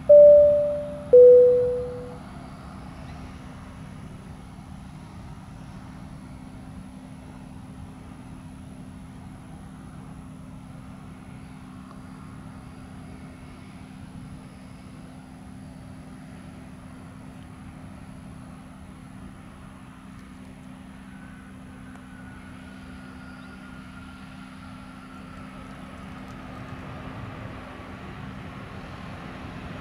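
A loud two-note chime, a higher note then a lower one of about a second each, followed by the steady distant rumble of a Boeing 737 jet landing and rolling out on the runway, with a low steady hum and, in the second half, a faint falling whine as the engines wind down.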